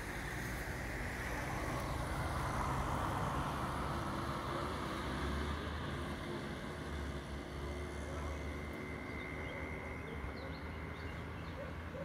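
Road traffic over a steady low rumble: a car passing swells and fades about two to five seconds in.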